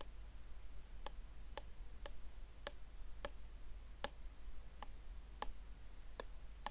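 Stylus tip tapping on a tablet's glass screen during handwriting: about nine light, sharp clicks at uneven intervals, each time the pen touches down.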